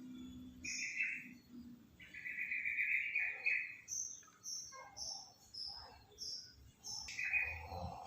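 A bird singing: two longer high notes, then a run of short, higher chirps at about two a second.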